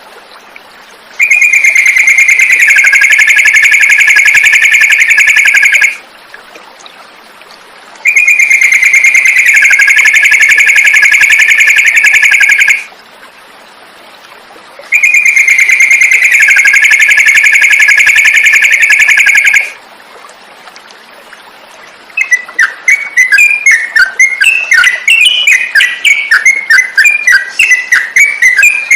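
Yellow-vented bulbul (trucukan) song on a birdsong tutoring recording: three loud, long buzzing trills of about five seconds each, separated by short pauses, then a rapid run of chattering, jumping notes near the end.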